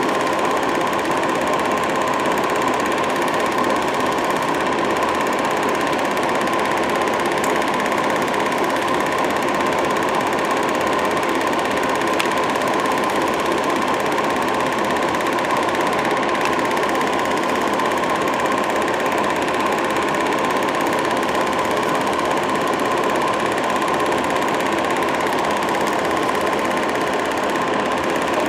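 Home-movie film projector running: a steady mechanical whirring clatter that goes on without a break.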